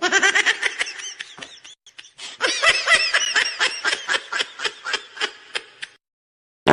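Cartoonish snickering laugh sound effect: a long run of quick, high-pitched giggles, three to four a second, with a brief break about two seconds in.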